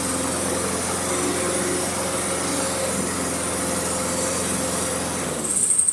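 Yard-Man mower's 5.5 hp Honda engine running steadily, having started despite being brought in as a no-start. It swells briefly louder near the end.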